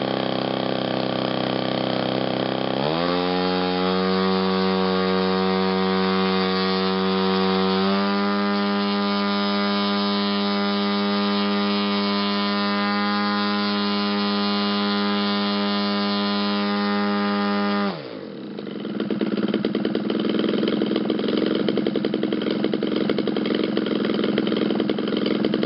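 Desert Aircraft DA-120 twin-cylinder 120cc two-stroke gasoline engine swinging a 28x10 laminated wood propeller on a thrust stand, its throttle stepped up by a computer. Its note steps up about three seconds in and again about eight seconds in, then holds steady at full throttle, about 6,100 rpm. About eighteen seconds in it drops abruptly back to a rough idle.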